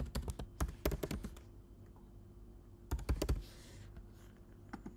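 Computer keyboard typing: a quick run of keystrokes in the first second and a half, then another short run about three seconds in.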